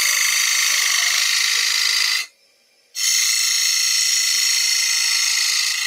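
Bowl gouge cutting the inside of a spinning wooden bowl on a lathe, a steady hiss of shavings being peeled off as the bowl is hollowed. The cut breaks off briefly a little over two seconds in, then starts again.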